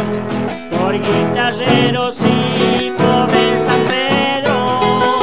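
Argentine Cuyo folk music in gato rhythm: criollo guitars strummed and picked, with sung vocal lines carrying vibrato through the middle.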